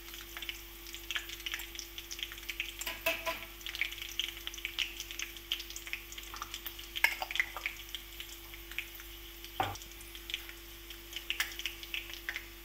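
Curry leaves and green chillies frying in hot oil in a kadhai on a gas stove: a steady scatter of small crackles and pops. One dull knock comes about ten seconds in.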